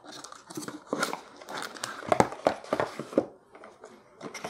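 Cardboard box and packaging rustling and scraping as an LED driver and its coiled power cord are lifted out by hand, with irregular light clicks and knocks.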